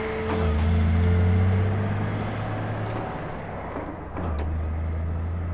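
A vehicle engine running with a deep, steady rumble. It gets louder about half a second in, eases off around three seconds, and picks up again just after four seconds, with a short click at each rise.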